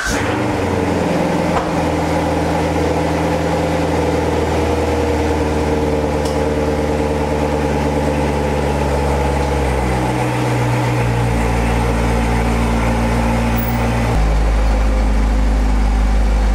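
Chevrolet C7 Corvette Stingray's 6.2-litre LT1 V8 idling just after a start, a steady low rumble. Its idle steps down a little about ten seconds in, and the low rumble grows louder near the end.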